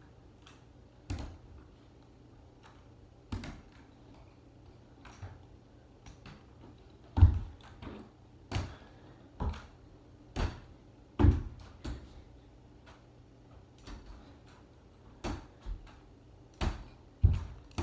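Aluminium underarm crutches knocking on a hard floor as someone walks on them, mixed with her steps: a dull knock every few seconds at first, then about one a second, a few of them louder.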